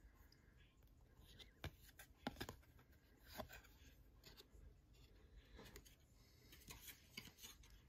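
Faint, scattered clicks and rustles of trading cards being slid and handled, over quiet room tone.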